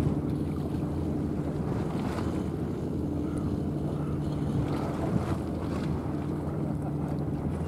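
Wind buffeting the microphone over lapping sea water, with a low steady hum underneath.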